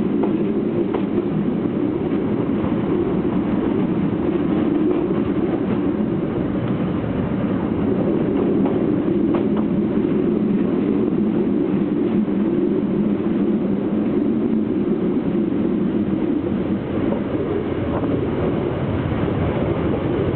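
Lézard Rouge train running steadily, heard from inside a carriage: a constant rumble of the coaches rolling on the track, with a few faint clicks of the wheels.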